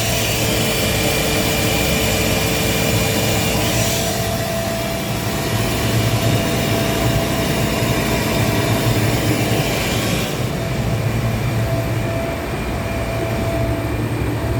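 Gardner Denver rotary screw air compressor running steadily with a loud hum and a few steady tones, no knocking heard, after its pressure valve was replaced. A high hiss above the hum fades about ten seconds in.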